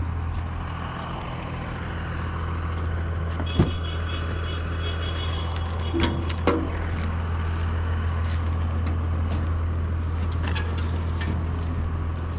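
A steady low engine hum, as from a vehicle idling, with a few sharp knocks about three and a half seconds in and twice around six seconds in.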